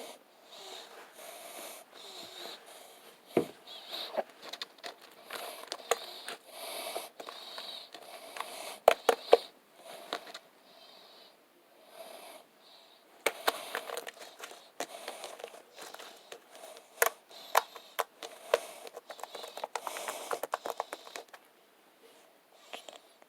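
Slime being squeezed, stretched and pressed by hand: irregular sticky squelches with sharp pops and crackles of trapped air, the loudest pops about 9 seconds in.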